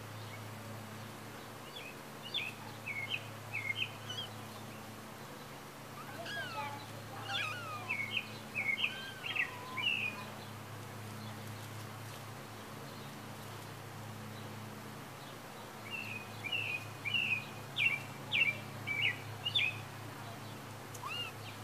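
A songbird singing in three spells of quick, chirpy notes, over a steady low hum.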